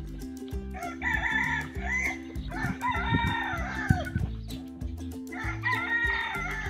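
Boholano native chicken rooster crowing, three long calls, the middle one falling away at its end, over background music with a steady beat.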